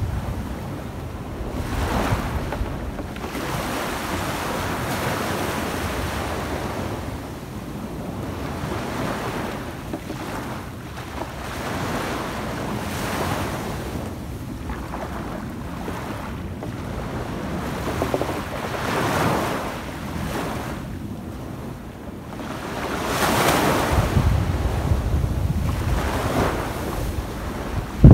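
Small waves washing up a sandy beach, each wash swelling and fading every few seconds. Wind buffets the microphone, most strongly near the end.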